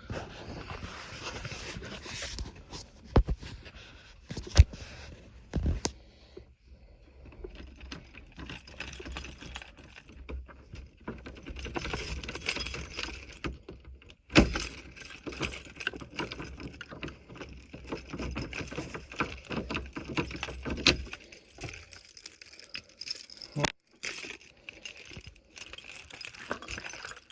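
Keys on a ring jangling, with irregular metal clicks and scrapes, as the key-turned ignition lock cylinder of a 1994 Honda Civic is worked out of the steering column with its release pin held down. A few sharp clicks stand out, the loudest about four seconds in and again about fourteen seconds in.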